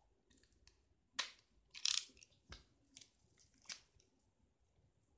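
A utility knife slitting plastic shrink-wrap on a comic book, and the film being torn and crinkled off: a handful of short crackles and rustles, the longest about two seconds in, with a soft knock shortly after.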